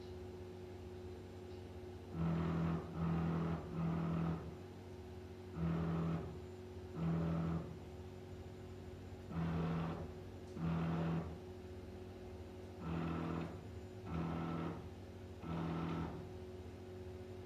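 Stepper motors of a home-built CoreXY 3D printer driving the print head in about ten short moves, each a steady whine lasting under a second, in groups with pauses between them. A steady fan hum runs underneath.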